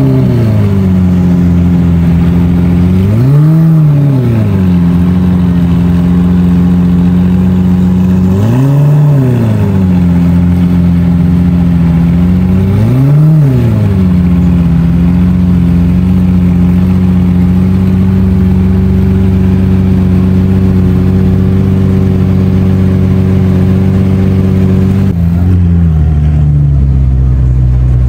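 Lamborghini Murciélago V12 idling, blipped four times in the first half so the revs climb briefly and fall back, then held at a steady idle. Near the end a different, lower-pitched idling engine takes over, a McLaren Senna's twin-turbo V8.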